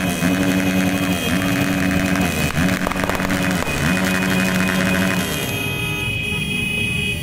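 Motorcycle engines running while horns sound in repeated blasts of about a second each, over the hiss of a hand-held firework spraying sparks. The horn blasts stop near the end.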